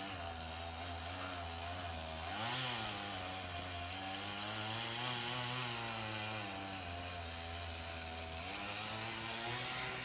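Domestic tabby cat purring close up: a steady low rumble whose pitch rises and falls gently every couple of seconds.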